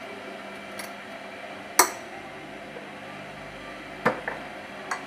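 Glass storage jars and kitchenware clinking and knocking as they are handled on a shelf: a few sharp clinks, the loudest about two seconds in and another pair about four seconds in.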